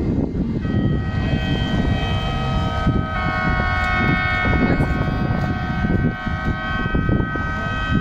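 Wind buffeting the microphone, a rough low rumble throughout. About half a second in, a chord of steady high tones comes in over it and thickens about three seconds in.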